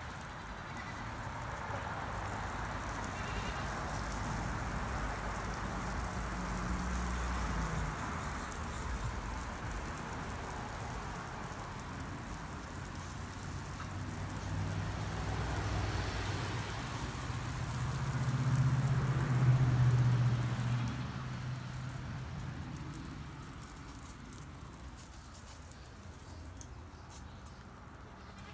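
Water hissing from a garden hose spraying onto muddy ground, fading out past the middle. Under it, a low mechanical hum swells to its loudest about twenty seconds in and then fades.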